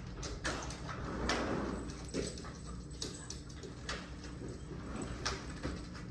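Pet dog whimpering and whining in distress, with a few short knocks and clicks.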